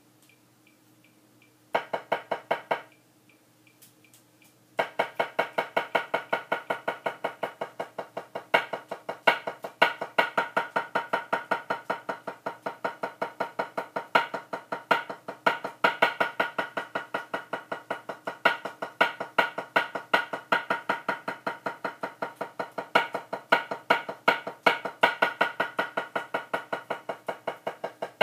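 Drumsticks playing rapid strokes on a rubber practice pad: a short run about two seconds in, then after a pause a steady stream of even strokes, from about five seconds in, with louder accented strokes mixed in.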